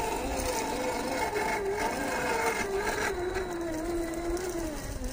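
Brushed 550 electric motor and gears of an MST CFX-W RC rock crawler whining as it crawls up rocks. The pitch wavers, then sinks lower in the second half, with a few short clicks and crunches along the way.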